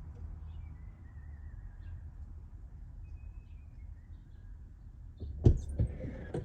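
Faint bird chirps over a low steady rumble. Two sharp knocks come about a second before the end, the first the loudest, with a smaller knock right at the end.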